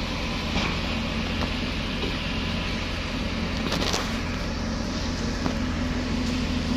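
A heavy machine's engine running steadily with a low hum, with a few light knocks, the strongest about four seconds in.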